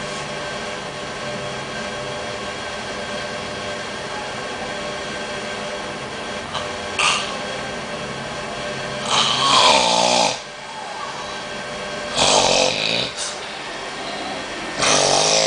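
A man snoring in his sleep, with three loud snores about three seconds apart in the second half, over a steady background hum.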